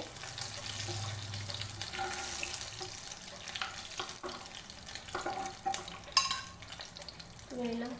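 Hot oil sizzling in a kadai after fried chicken pieces have been lifted out, with scattered clinks of a metal utensil and one sharp, ringing clink about six seconds in.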